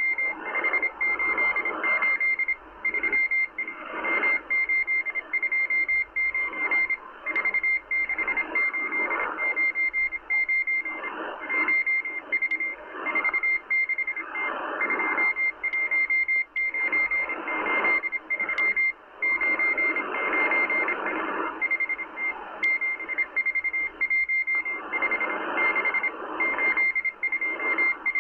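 The M12 Russian spy station's Morse code transmission, received on 14451 kHz by a Kenwood R-1000 shortwave receiver: a single high beeping tone keyed in fast dots and dashes over shortwave static that swells and fades.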